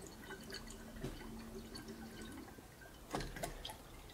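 Rum trickling and dripping from a wall-mounted bar optic into a glass, faint, with small clicks of the glass and dispenser.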